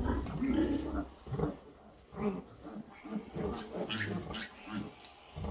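Newborn piglets giving repeated short squeals and grunts while being held and handled.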